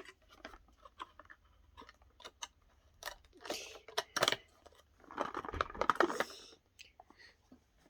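Small toy erasers being handled and put into a container: a run of light clicks and taps, with two longer stretches of rustling handling noise around the middle.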